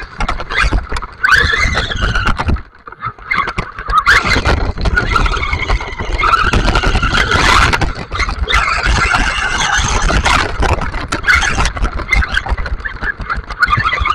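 Electric RC buggy running flat out on wet sand and gravel: the motor and drivetrain whine rises and falls with the throttle over a rough rumble of the tyres and chassis. The sound drops away briefly about three seconds in, then picks up again.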